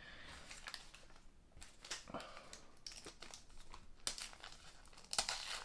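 Small packaging wrapper crinkling and tearing as a tiny toy accessory is unwrapped by hand, with a louder stretch of crackling near the end.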